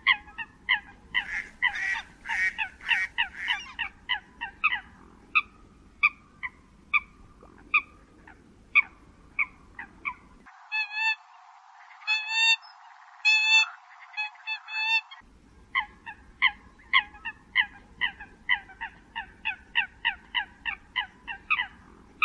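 Eurasian coots calling: a fast, uneven string of short, sharp honking calls, crowded together over the first few seconds. From about ten to fifteen seconds a different run of higher, cleaner calls plays without the background hiss, then the first run of calls resumes.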